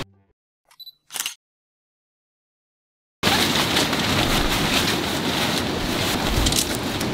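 Dead silence for about three seconds, broken by two brief faint sounds around a second in. Then a steady rushing noise, like outdoor water or rain, starts abruptly and runs on.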